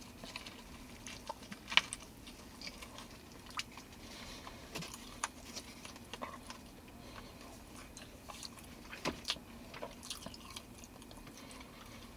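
A man biting into a burger and chewing it: faint, irregular clicks of chewing, a little louder about two seconds in and again about nine seconds in.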